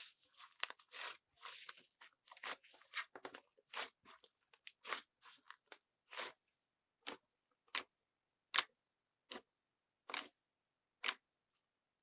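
White, sticky, fluffy slime being squeezed and pressed by hand, giving sharp pops and crunchy crackles. The pops come thick and fast over the first few seconds, then thin out to about one every second.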